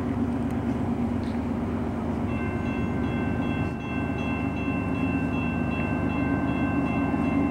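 Approaching diesel freight train led by a GE ES44AC locomotive, a steady dense rumble. About two seconds in, a steady high-pitched tone joins it and holds.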